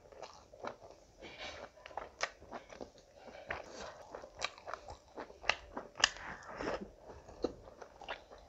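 Close-up chewing and mouth sounds of a person eating rice and curry by hand, with irregular sharp wet smacks and clicks, several a second.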